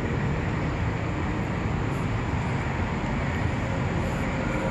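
Steady, even hiss of noise with no speech or music in it.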